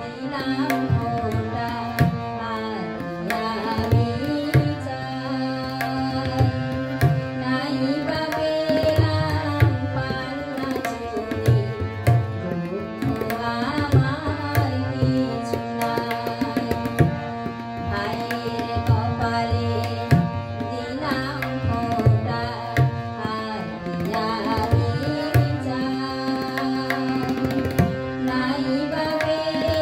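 A woman singing a Bengali song while playing a harmonium, with tabla keeping a steady rhythm underneath.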